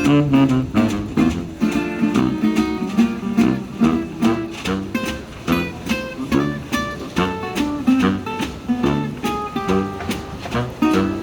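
Acoustic guitar music, with quick plucked and strummed notes.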